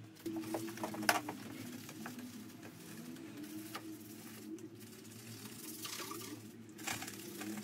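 A bristle brush scrubbing soapy engine parts and plastic covers in short scratchy strokes, the loudest about a second in. Underneath, a low call rises and falls over and over.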